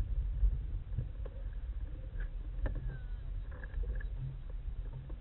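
Open-top off-road vehicle driving along a rough dirt track: a steady low rumble with a few sharp knocks and rattles as it goes over bumps.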